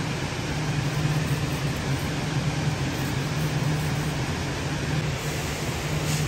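Steady mechanical hum with an even rushing noise, like a running fan or ventilation unit.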